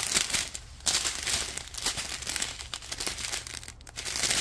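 Small clear plastic bags of diamond-painting drills crinkling in irregular bursts as they are handled and turned over.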